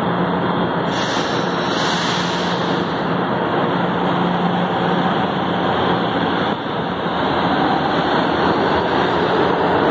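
A São Paulo Metro train pulling out of an underground station. It hums steadily while standing, with a brief hiss about a second in. From about seven seconds in, its running noise builds as it accelerates away.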